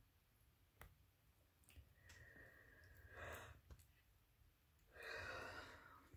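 Very quiet room with a few small clicks and two soft breathy sighs, one about three seconds in and a longer one about five seconds in.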